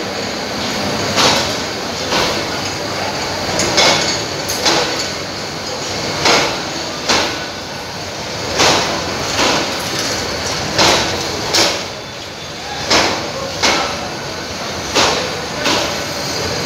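Passenger train coaches rolling slowly through the station, their wheels clacking over a rail joint in pairs, one pair about every two seconds, over a steady rumble of the running train.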